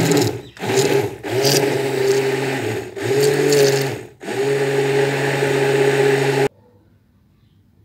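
Electric stick blender whirring as it blends yogurt, milk and sugar into lassi, run in several stretches with short breaks, then cut off about six and a half seconds in.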